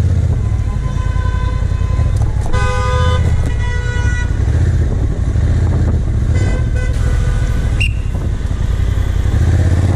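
Vehicle horns honking in city traffic, a long blast about two and a half seconds in and a shorter one about six and a half seconds in, over the steady low rumble of a motorcycle's engine and road noise.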